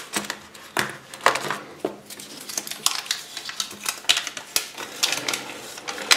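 Small hard plastic parts of a Kinder Surprise toy being handled and set down: an irregular run of short clicks and clatters.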